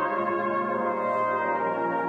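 Brass band playing slow, sustained chords, the held notes of the full band layered from low bass to high treble.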